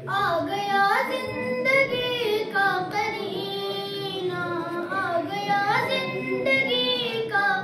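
A young girl's voice singing a manqabat, an Urdu devotional poem, solo, with long held and gliding melismatic notes.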